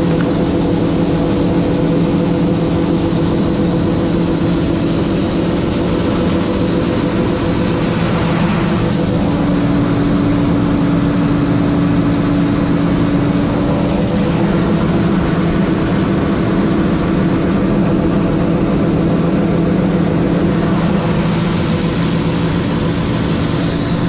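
Large diesel farm machine engine running steadily under load, a constant hum with a faint high whine over it; the hum's tone shifts slightly about nine seconds in.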